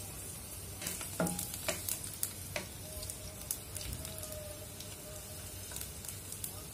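Garlic cloves frying in coconut oil in a pan: a steady low sizzle with scattered sharp crackles, most of them in the first half.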